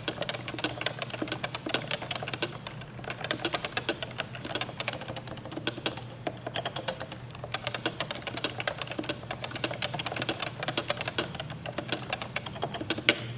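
Fast, continuous typing on a Topre electrostatic-capacitive keyboard, many muted keystrokes a second, over a faint steady low hum.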